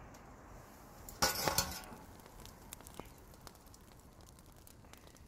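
Wood fire burning in a pizza oven: scattered crackles and pops over a faint hiss, with a louder noisy burst about a second in that lasts under a second.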